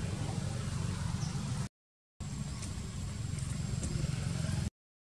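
Steady low rumbling outdoor background noise, broken twice by half-second drops to dead silence.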